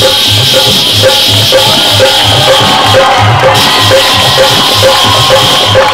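Mouth-made imitation of ghungroo ankle bells, amplified through a microphone: a steady high jingling over a regular low drum beat of about two strokes a second.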